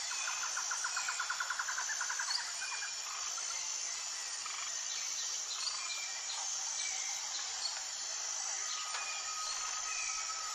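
Steady chorus of insects with birds chirping, a fast trill for the first two seconds and a thin steady whistle near the end.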